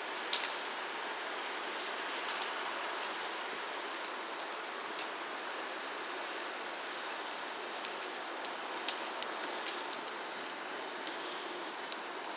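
Distant container freight train behind an electric locomotive rolling slowly along the rails: a steady hiss with a few scattered light clicks and ticks.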